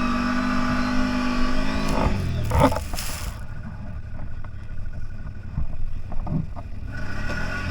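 The CFMOTO 1000 off-road vehicle's V-twin engine runs at steady revs, then drops in pitch about two seconds in, with a short loud rush of noise and a knock. After that it runs quieter, its revs rising and falling gently.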